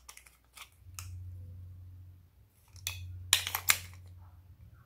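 Hard plastic toy container clicking and snapping as it is handled and opened, with a few light clicks near the start and a cluster of sharper, louder clicks about three seconds in.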